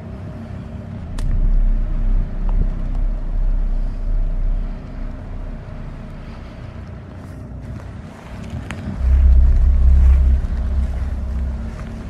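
Car driving slowly over a rough, potholed track, its engine running steadily, with two stretches of louder low rumble and scattered small knocks from the bumps.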